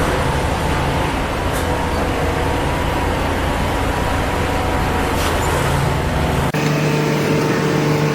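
Motor vehicle running with steady road and engine noise. About six and a half seconds in, it cuts abruptly to a different, steadier vehicle hum with a few held tones.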